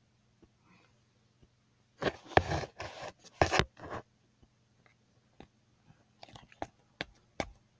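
Play-Doh being squeezed and handled by fingers close to the microphone. A cluster of crackly scrapes comes about two seconds in, then scattered light clicks and taps.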